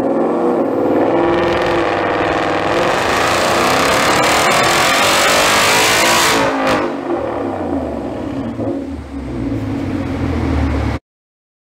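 2018 Ford Mustang GT's 5.0 Coyote V8, fitted with a cat-back exhaust and JLT cold air intake, making a full-throttle power run under load on a Dynapack hub dyno: the engine note climbs steadily in pitch for about six seconds. Then the throttle closes and the engine winds down, falling in pitch, until the sound stops abruptly shortly before the end.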